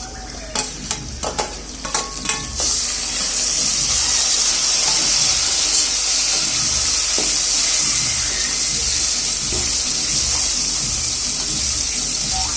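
A few quick clinks of a utensil against a pan, then about two and a half seconds in a loud, steady sizzle starts suddenly as food goes into hot oil and keeps frying.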